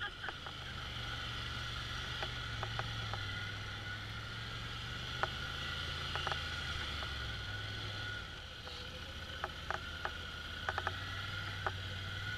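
Polaris Sportsman ATV engine running steadily while ridden over slickrock, its note stepping up and down a few times. Scattered light clicks and knocks.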